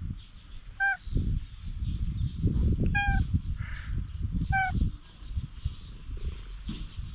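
Three short, clear animal calls spaced a second or two apart, over a louder low rumbling noise on the microphone.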